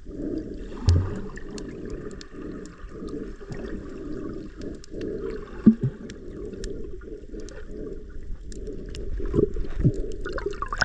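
Underwater sound picked up by a submerged camera: a muffled, steady wash of water noise with faint scattered clicks and a few dull thumps, the sharpest about six seconds in.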